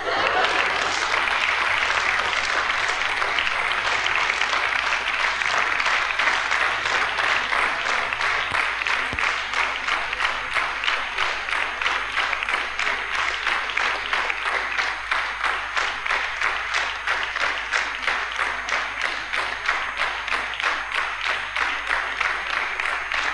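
Studio audience applauding at the end of a radio cabaret sketch, the clapping becoming rhythmic and in unison in the second half, heard off an old cassette tape copy.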